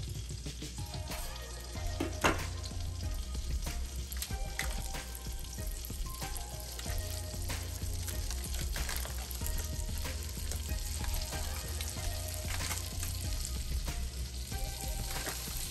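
Butter melting and sizzling in a hot stainless steel pot, a steady crackling fry as the butter clarifies and its cream cooks off. There is one sharp knock about two seconds in.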